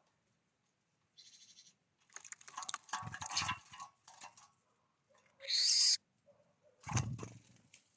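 Birds at a feeder: a series of short noisy bursts, the loudest about five and a half seconds in, with faint short low notes between them.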